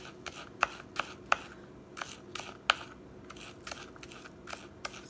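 Kitchen knife dicing a red onion on a plastic cutting board: the blade taps the board in sharp, irregular knocks, about two to three a second.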